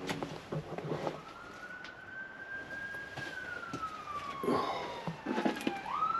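Police car siren wailing as the car passes: one slow rise to a high pitch about a second in, a long gradual fall, then a quick rise again near the end.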